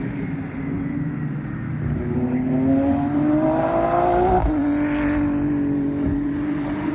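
GT3 race car engine accelerating hard, its pitch climbing for about two seconds, then dropping sharply about four seconds in, as on an upshift, and running on at a steady pitch.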